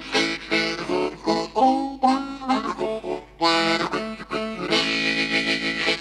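Hohner Marine Band 364 low D harmonica, played with cupped hands in a fast blues run of short, choppy notes. Near the end it settles into one long held chord, a draw on the low holes 1 to 3.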